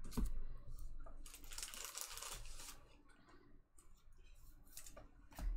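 Trading cards and their packaging being handled: rustling and crinkling with a few light clicks, dying down after the middle.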